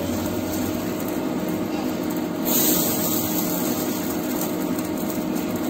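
Steady machine hum with a constant low tone, such as an induction cooktop's cooling fan, under the hiss of adai batter sizzling in oil on a cast iron tawa; the hiss grows brighter about two and a half seconds in.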